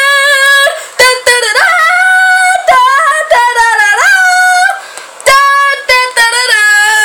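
A woman singing loud, high wordless notes close to the microphone, holding each note briefly and swooping up and down in pitch between them.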